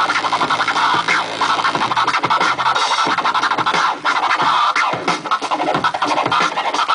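Vinyl scratching on Technics turntables over a hip hop beat: quick back-and-forth sweeps of a record sample, rising and falling in pitch, cut in rhythm with the music.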